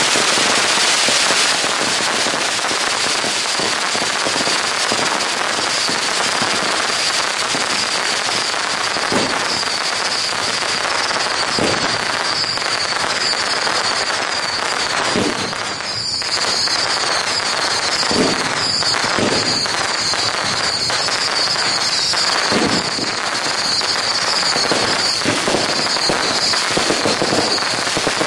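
A long, unbroken barrage of firecrackers crackling densely, with a high wavering whistle running through it from a couple of seconds in and a louder bang every few seconds.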